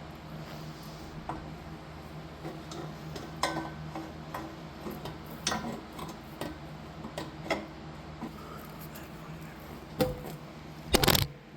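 Scattered metallic clinks and taps of tools and exhaust parts being handled, over a steady low hum, with two louder knocks near the end.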